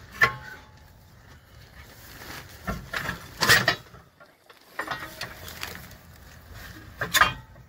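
Intermittent metallic clanks and clicks from tools and rear suspension parts being handled under a van: a sharp knock just after the start, a louder cluster around three to three and a half seconds in, and another knock near the end.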